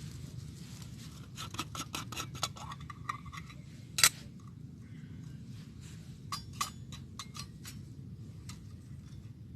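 A run of small clicks and scrapes, like gear being handled, with one sharp knock about four seconds in, over a low steady rumble.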